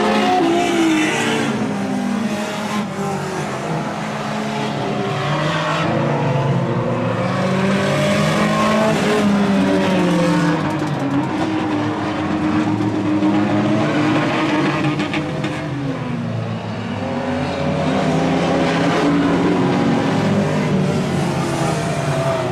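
Several banger racing cars' engines running hard around the oval, their pitch rising and falling over and over as they accelerate and lift off.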